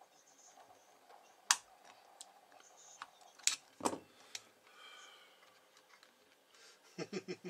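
Sharp, scattered clicks and taps of needle-nose pliers and power leads being handled against a CB amplifier's aluminium case and circuit board, ending in a quick run of taps.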